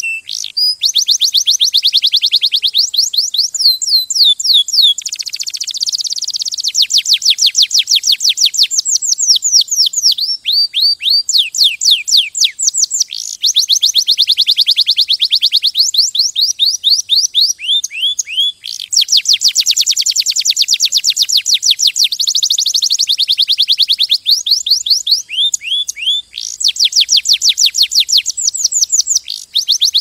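Domestic canary singing a long, loud song of fast trills, each a rapid run of repeated downward-sweeping notes. The trills come in phrases broken by brief pauses, with a few harsher, buzzier rolls among them.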